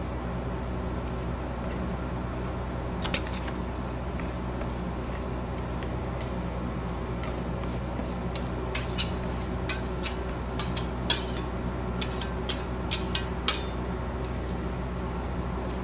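Metal spatulas tapping and scraping on the frozen steel pan of a rolled ice cream cold plate while spreading milk ice cream: a few light taps, then a quicker run of about a dozen sharp metal clicks in the second half, over a steady low hum.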